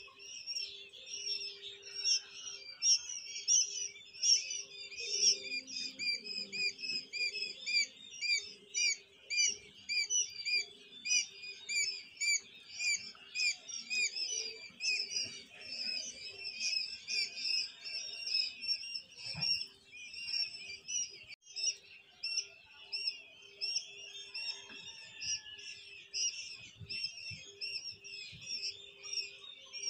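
A large flock of quail chicks peeping continuously, many short high chirps overlapping into a dense chorus, with a faint steady hum underneath.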